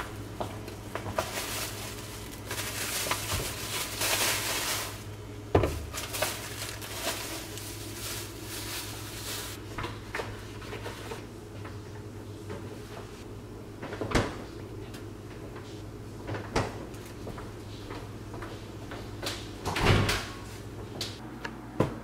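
Household handling sounds: rustling in the first few seconds, then a string of knocks and clicks as doors, among them a refrigerator door, are opened and shut. A steady low hum runs underneath, and the loudest knock comes near the end.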